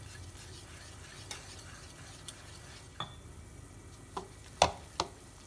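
Metal wire whisk beating gram flour and water into a thick batter in a bowl: soft, steady scraping and stirring, with a few light clicks of the whisk against the bowl and two sharper knocks near the end.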